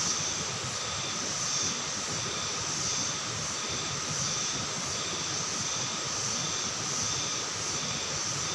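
Night-time tropical forest insect chorus: a steady high trilling hiss with a faint rhythmic pulse about twice a second.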